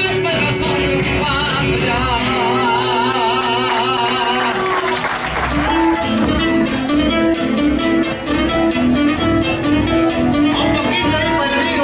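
Argentine folk music, a chacarera, in a passage without lyrics: guitar strumming with a wavering melody line over it. About halfway through it settles into a steady, even rhythm of repeated notes.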